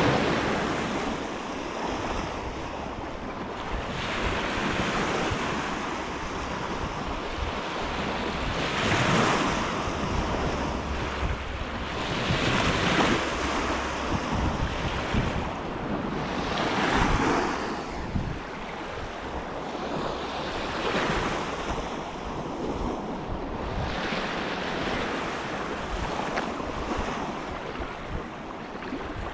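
Lake waves washing onto the shore, one swelling wash about every four seconds, over a low rumble of wind on the microphone.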